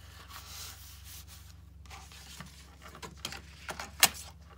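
Paper rustling and sliding as journal pages are handled on a cutting mat, then a few light taps and one sharp click about four seconds in.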